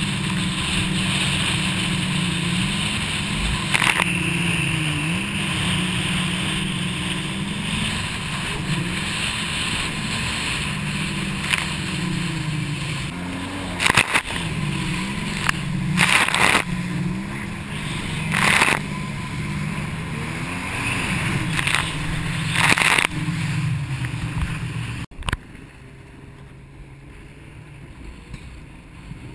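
Jet ski engine running at speed, its pitch rising and falling with the throttle over the waves, with several sudden bursts of water spray crashing over the ski. About 25 seconds in the engine is throttled back sharply and everything goes much quieter.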